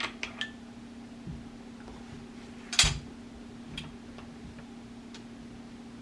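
Steel parts of an M1 Garand rifle being handled during disassembly while the bolt is taken out: a few light metallic clicks, then one louder clank nearly three seconds in, with a steady low hum underneath.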